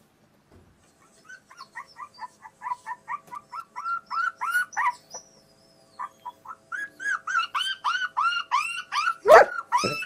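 Phone ringtone playing a fast run of short chirping yips, about four a second, getting louder, with a brief break about five seconds in before it starts again. A single louder sharp sound cuts in near the end.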